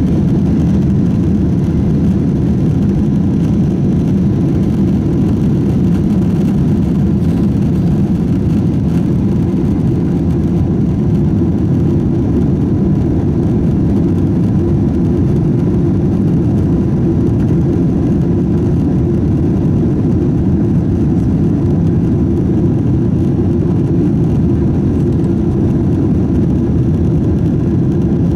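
Cabin noise inside a Boeing 767-400 during takeoff and initial climb: the twin turbofan engines at takeoff thrust and the airflow make a steady, loud, low rumble that holds even through liftoff.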